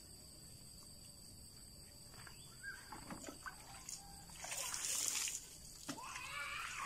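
Water scooped with a plastic dipper from a bucket and poured out, splashing onto a concrete slab about two-thirds of the way through, after a few smaller sloshes and knocks. A short call sounds near the end.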